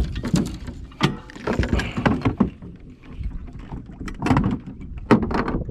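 Irregular knocks and bumps from a small fishing boat and the gear in it, about half a dozen over a few seconds, over a low rumble.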